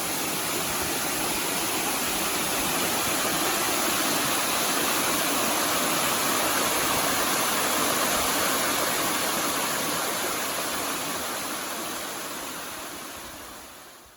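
Kotodaki waterfall: water falling and rushing in a steady roar, fading out over the last few seconds.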